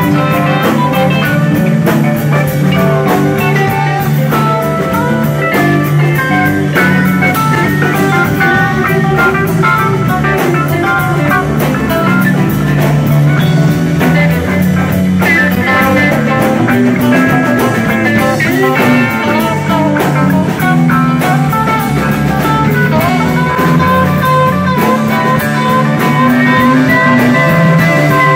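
Live jam-band rock played instrumentally: electric guitars trade melodic lines over a steady two-drummer beat, with Hammond organ and bass filling in. The music plays at a loud, even level with no singing.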